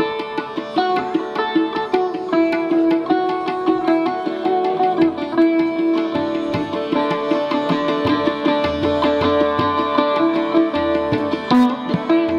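Sitar playing a melody of quick plucked notes over a steady drone.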